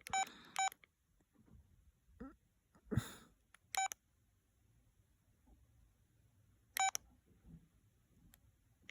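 LG VX6100 flip phone keypad beeping as menu keys are pressed: two quick beeps near the start, then single beeps about four and seven seconds in. A short breathy noise about three seconds in.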